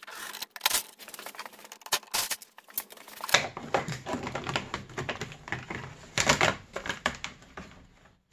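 Rapid light clicks and rattles of hand work on a snowmobile's plastic console, followed, from about three seconds in, by several seconds of plastic scraping, rubbing and knocking as the console panel is worked loose and lifted off.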